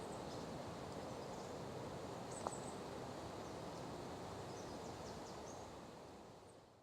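Outdoor wildlife ambience: a steady background hiss with a few short, high chirps from small birds and a single click about two and a half seconds in, fading out near the end.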